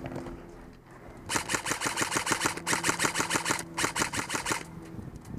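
Airsoft rifle firing three rapid full-auto bursts, starting a little over a second in, each a quick run of sharp shots.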